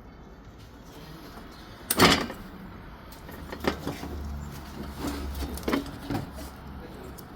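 A series of separate knocks and clicks from car parts and tools being handled. The loudest is a sharp clunk about two seconds in, followed by several lighter clicks.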